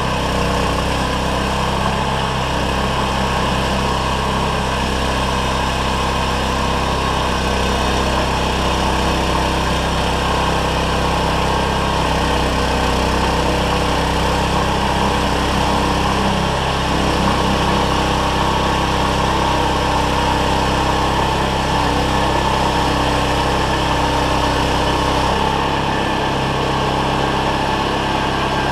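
Engine running steadily at constant speed, with no pauses or changes in pitch.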